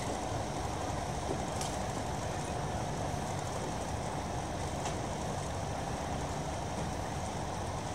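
De Havilland Canada Dash 7's four turboprop engines running, a steady, even drone with a deep rumble and a strong midrange hum. Two faint ticks sit on top, about a second and a half in and again about five seconds in.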